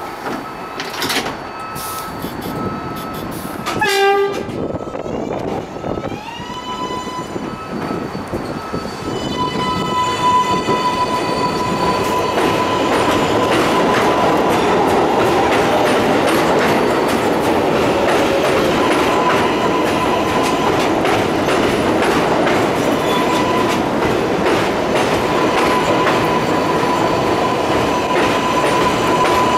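R142A subway train departing: a clunk about four seconds in, then the propulsion motors whine upward in pitch to a steady high tone as the train starts to move. Wheel and rail noise builds and runs steadily as the cars pass.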